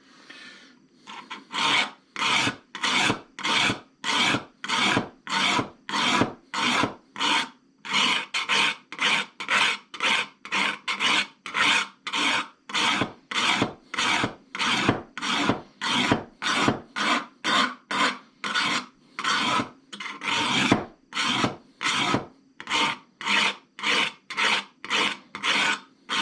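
Diamond hone stroked along the edge of a steel shear blade, a finer grit after the coarse one: steady, even rasping strokes, about two a second, with a couple of brief pauses.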